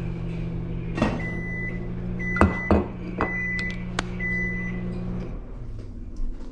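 Microwave oven humming, with several short high beeps and a few sharp clicks; about five seconds in the hum falls away and stops.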